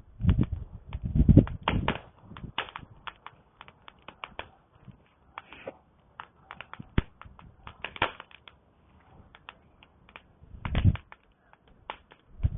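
Campfire crackling: wood popping and snapping in irregular sharp clicks. A few louder low, muffled rumbles come in the first two seconds and again near the end.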